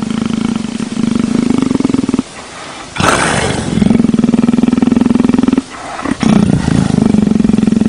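Leopard making a deep, rapidly pulsing rumbling growl while its head is scratched, a sound of contentment. The rumble breaks off twice, and about three seconds in it gives a loud breathy exhale.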